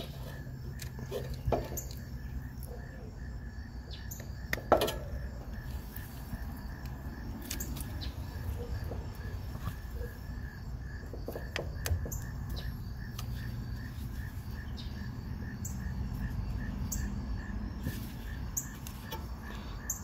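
Scattered small clicks and taps from gloved hands fitting quick-connect terminals onto an HVAC start capacitor, the loudest about five seconds in. Underneath, a steady low outdoor rumble and an insect's continuous pulsing chirp.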